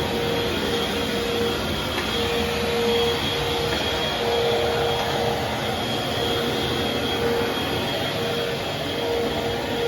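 Upright vacuum cleaner running steadily while vacuuming, a motor whine that comes and goes over the steady rush of air.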